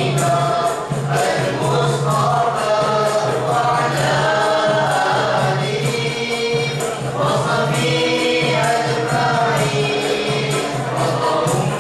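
A group of boys singing selawat (nasyid) together through microphones, in sustained, gliding phrases. A light percussion beat ticks along under the voices.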